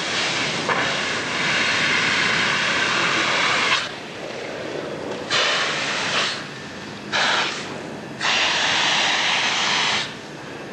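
Compressed-air-foam hose nozzle discharging with a loud, even hiss. A blast of about four seconds comes first, then the nozzle is shut and reopened in shorter bursts, dropping to a fainter hiss in between.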